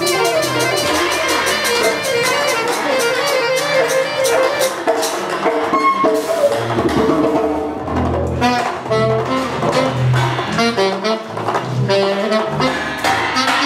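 Free-improvised acoustic music in a rock tunnel: alto saxophone and trumpet lines over a bowed double bass, with rapid tapping percussion in the first few seconds. Long low bowed bass notes come forward from about halfway through.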